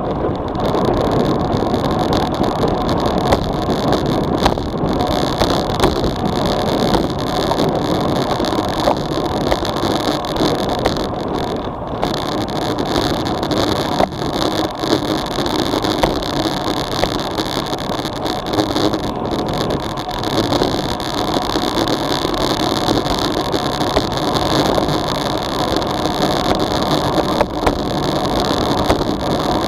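Wind rushing over an SJCAM SJ4000 action camera's microphone on a road bike descending at about 30–38 km/h, mixed with the hum of tyres on asphalt. A loud, steady rush with no break.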